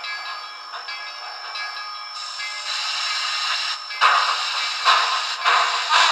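Soundtraxx Tsunami2 steam sound decoder playing through an HO scale model locomotive's small speaker, thin and without bass. Held tones over a steady steam hiss give way to rhythmic exhaust chuffs, about two a second, starting about four seconds in.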